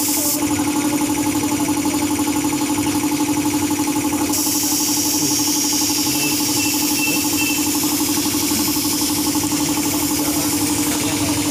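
Air compressor feeding a paint spray gun, running steadily with a fast, even throb, and a high hiss of air that is strongest from about four seconds in.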